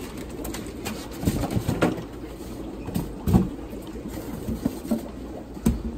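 Styrofoam shipping boxes being handled: a lid pushed shut and the boxes shifted, giving several low squeaky rubs and knocks, the loudest about a third of the way in and again about halfway.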